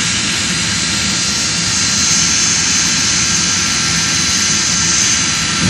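Jet dragster's turbine engine running while the car stands still, without afterburner: a steady rushing roar with a high whine that grows slightly stronger about two seconds in.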